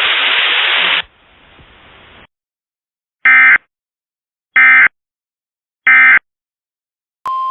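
Emergency Alert System (SAME) end-of-message data bursts: after about a second of radio static and a fainter hiss, three short, identical, harsh digital warbles sound about 1.3 seconds apart, marking the end of the alert. Just before the end comes a click and the start of a steady beep.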